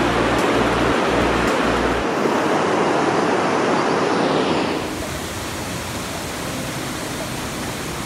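Rushing white water of a mountain stream and its cascading waterfalls: a dense, steady noise. A low rumble lies under it for the first two seconds, and about five seconds in the water becomes a little quieter.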